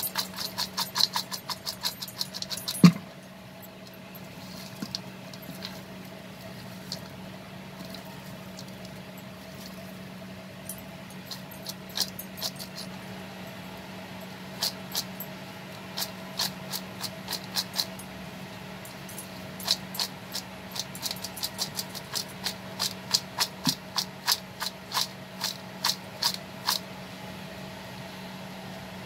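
A spoon clicking against a bowl in quick runs while crispy fried okra is tossed with fried peanuts and curry leaves, with one sharp knock about three seconds in. A steady low hum runs underneath.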